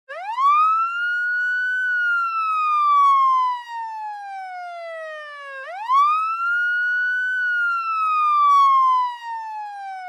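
Emergency-vehicle siren in a slow wail: the tone rises quickly, then falls slowly over about four seconds, twice.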